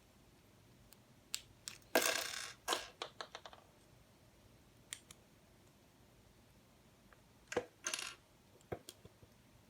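Plastic LEGO Technic pieces clattering and clicking against each other: a short rattle of loose parts about two seconds in, followed by a quick run of small clicks, then a few single clicks and another brief clatter with clicks near the end.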